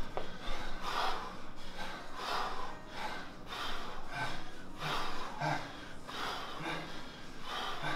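Heavy breathing of men exercising: short, forceful breaths about once a second, in time with bodyweight squats, from men winded partway through a hard circuit.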